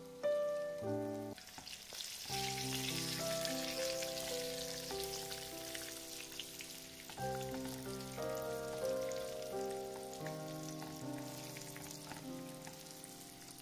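Zucchini and carrot croquettes sizzling as they shallow-fry in sunflower oil in a pan, getting louder about a second and a half in as another floured croquette goes into the oil. Background music plays over it.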